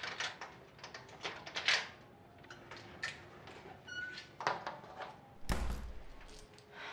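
A room door is opened as someone comes in. There is a run of small clicks, rattles and rustles, then one heavier low thud about five and a half seconds in.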